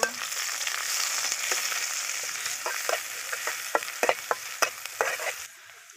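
Chopped onion and garlic sizzling in hot oil in a stainless steel karai for tempering, with a metal spatula scraping and clicking against the pan as it stirs. The sizzling stops abruptly near the end.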